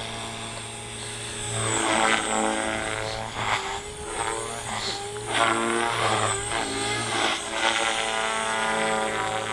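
OXY 4 electric RC helicopter in flight, its Scorpion brushless motor and rotors giving a steady whine. The whine grows louder about a second and a half in, and its pitch wavers up and down as the helicopter manoeuvres.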